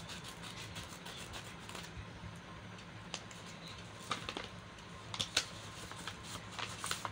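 Paper handling: scissors snipping the edge of a brown kraft-paper envelope, then the crinkle and rustle of the stiff paper as fingers pry it open and pull out the contents, with sharper crackles in the last few seconds. A steady low hum runs underneath.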